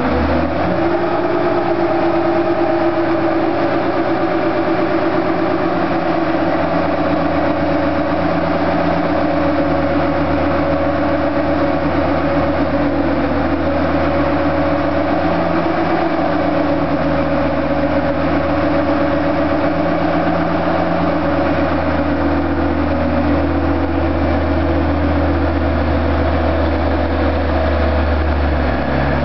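Dodge Ram pickup's 5.9 Cummins inline-six diesel running on a chassis dyno at a steady speed, with a deep, even engine note. The low drone grows stronger for the last several seconds as the engine comes under load and begins to pour black smoke.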